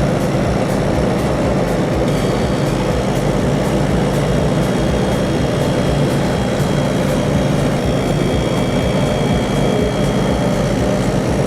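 CNC machine running steadily in a workshop: an even mechanical noise with a faint high whine that comes in about two seconds in.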